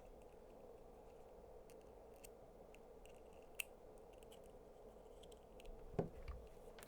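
Faint small clicks and taps of power-supply test leads being clipped onto a lithium-ion cell, over a steady faint hum. There is a sharper click about three and a half seconds in and a knock about six seconds in.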